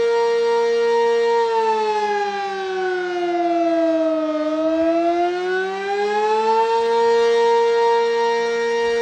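Sentry 20V2T electromechanical outdoor warning siren sounding a loud steady tone. About a second and a half in, its pitch sags slowly for about three seconds, then climbs back up to the steady tone near the end.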